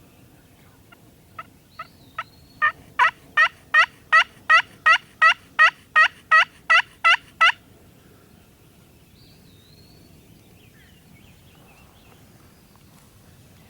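A long run of turkey yelps: three soft notes, then about fourteen loud ones at an even pace of roughly three a second, stopping about halfway through.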